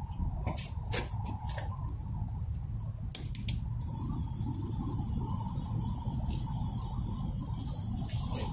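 Several clicks as a camping-stove burner on a butane gas canister is turned on and lit, the sharpest two a little after 3 s, then a steady gas hiss from the lit burner from about 4 s in. The canister is nearly empty and straight out of the freezer, so the flame is weak even with the valve fully open.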